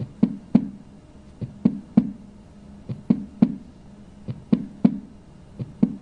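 Recorded heart sounds with an S4 gallop: a soft, lower-pitched beat just before each S1, then S2, giving a 'tulub-dub' three-beat pattern that repeats five times, about every second and a half. A new S4 comes from the atria pushing blood into a stiff, non-compliant ventricle, and is a sign of myocardial ischemia or infarction.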